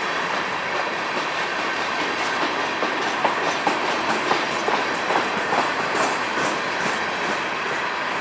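Empty coal train's cars rolling past: a steady rumble and hiss of steel wheels on rail, with a run of sharp clacks in the middle as wheels pass over rail joints.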